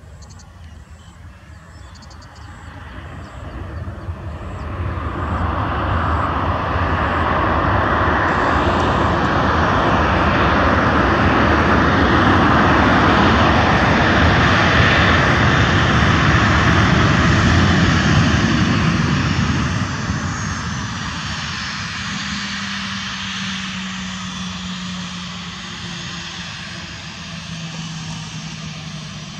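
Boeing 737 jet engines in reverse thrust just after touchdown: a roar that swells over a few seconds, stays loud for about fifteen seconds, then dies away as the airliner slows, leaving a lower steady engine hum.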